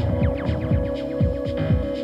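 Techno music: a heavy, fast kick drum and bassline thumping about four times a second under a held synth tone, with quick falling synth sweeps over the top.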